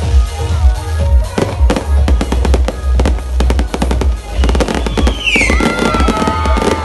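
A fireworks barrage: rapid, overlapping bangs and crackling bursts, with a falling whistling tone about five seconds in.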